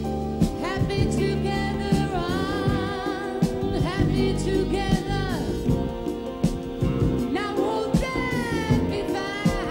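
A woman sings a jazz ballad into a microphone, holding long notes with vibrato across several phrases. A live jazz band plays behind her, with drums keeping time.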